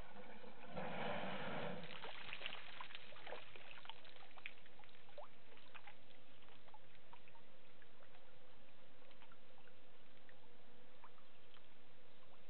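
African elephant bull drinking: a brief splashing rush of water about a second in as it empties its trunk into its mouth, followed by scattered drips and trickles.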